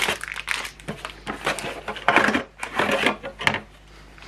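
A cardboard toy box being opened by hand: irregular bursts of tearing and rustling card with quick clicks and clatter.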